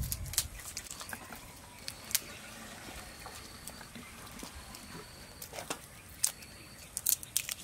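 Garlic cloves being peeled by hand: the dry papery skins crackle and snap in scattered, irregular sharp clicks.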